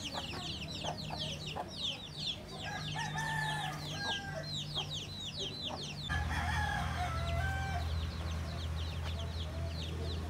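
Chickens clucking and a rooster crowing, over a dense chorus of quick, falling high chirps that thins out about six seconds in. A steady low hum gets louder at about the same point.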